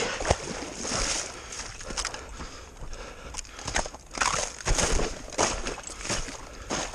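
Wader boots crunching and breaking through snow-covered ice and slush at a river's edge, in irregular steps about one to two a second.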